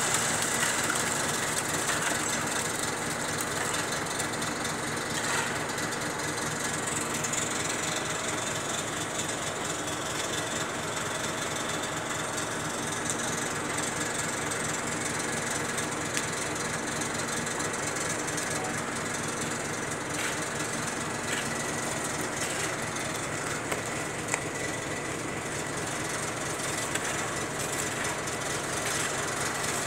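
A large engine running steadily with a fast, even rhythm.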